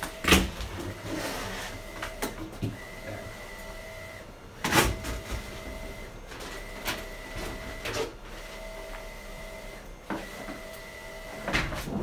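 A mini fridge door being opened and lifted off its hinges: several sharp knocks and clunks, the loudest about five seconds in. Behind them a wide-format printer runs with a steady tone that stops and starts every few seconds.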